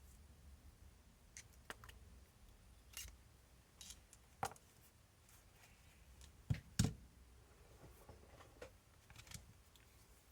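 Faint scattered clicks and taps of small hand tools and RC shock parts being worked apart, with two louder knocks close together about six and a half seconds in.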